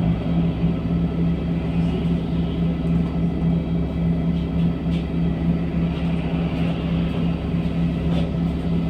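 LiAZ-5292.67 city bus running, heard from aboard: a steady drone with a constant low hum and a few faint light rattles.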